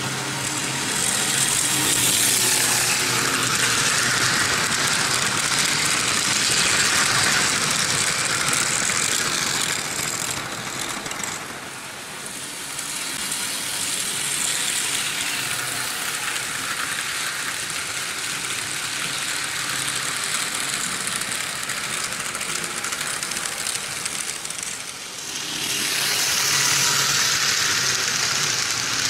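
Vintage Märklin H0 model trains running on stamped-metal M-track: a steady metallic rattle and rumble of wheels on the tinplate rails. It swells in the last few seconds as a train of passenger coaches passes close by.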